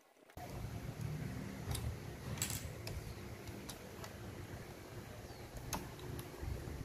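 Handling noise from the opened plastic case and circuit board of a Sony CFS-1133S cassette boombox, as it is taken apart by hand. A low rumble of hands on the parts is broken by about half a dozen scattered sharp clicks and taps of plastic and metal.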